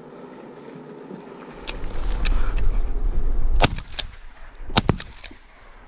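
Shotgun fired twice, a little over a second apart, each shot a sharp crack. A low rumble on the microphone comes just before the first shot.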